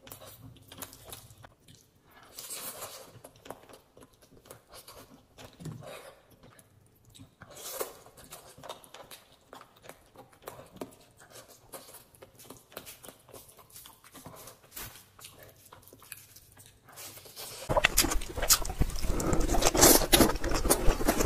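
Close-miked chewing and mouth sounds of someone eating chicken and rice by hand, soft and scattered. About 17 seconds in, a much louder, dense stretch of wet, crackly chewing takes over as another eater bites into glazed chicken drumsticks.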